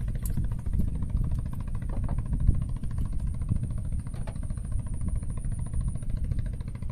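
A small engine running steadily with a low rumble and an even pulse.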